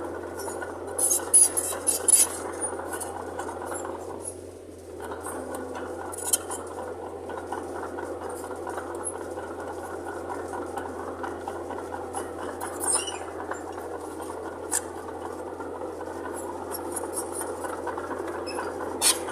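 Small Mitsubishi BD2J bulldozer's diesel engine running steadily, with intermittent sharp metallic clinks and rattles over it, the loudest about a second in.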